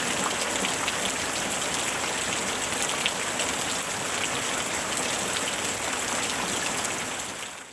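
Steady rain falling on a surface, an even hiss dotted with many sharp little drop ticks, fading out quickly near the end.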